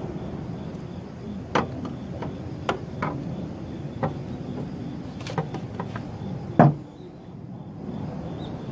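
About six irregular sharp knocks and clicks, the loudest one about two-thirds of the way in, over a steady background noise.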